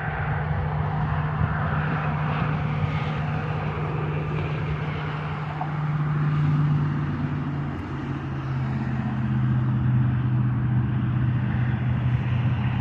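Steady low hum of a running motor vehicle, dropping slightly in pitch about eight seconds in.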